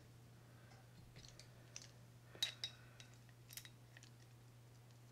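Faint scattered clicks and light metal clinks of small reel parts being handled as the pawl cap is threaded onto the Shimano Citica 200D baitcasting reel's level-wind line guide.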